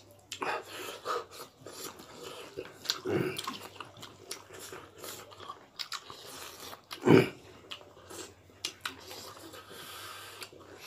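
Two people chewing and biting food eaten by hand, close to the microphone: wet chewing with small crunches and clicks. One much louder short sound stands out about seven seconds in.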